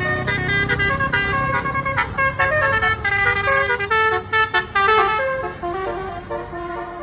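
Indonesian "telolet basuri" multi-tone bus horn playing a quick melody of short notes that step up and down in pitch, with a low engine rumble under it at the start.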